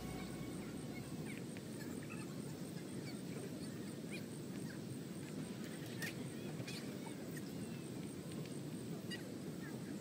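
Outdoor ambience: a steady low rush with scattered short bird calls and a faint, evenly pulsing high sound throughout.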